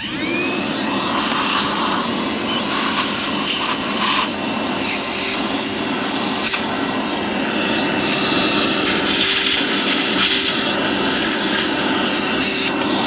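A small electric power tool spins up with a short rising whine and runs steadily at one pitch, with a rough scrubbing, grinding noise over it, as of a rotary tool working corroded metal.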